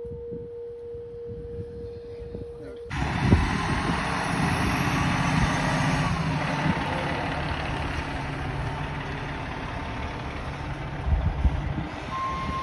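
Pennsylvania Railroad locomotive bell's sustained hum ringing on after a strike, cut off abruptly about three seconds in. A louder, steady, engine-like rumble follows, with indistinct voices.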